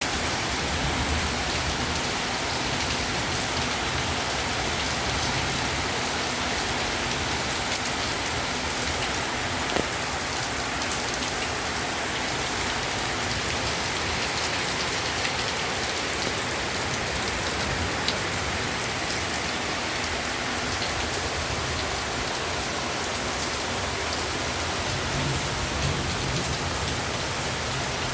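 Heavy rain pouring down in a steady hiss, with a few sharper drop hits standing out now and then.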